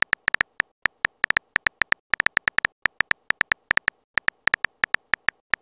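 Simulated phone keyboard clicks from a texting-story app as a message is typed out: short, high clicks at an uneven pace of about six a second, one per key press.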